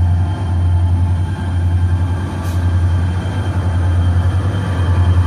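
Diesel locomotive engine running, a steady deep drone with no horn sounded.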